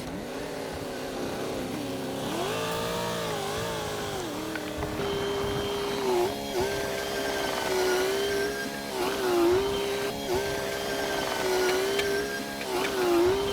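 Heavy machine engine running, its pitch rising after about two seconds and then holding steady, dipping briefly every second or two as it takes load and recovers.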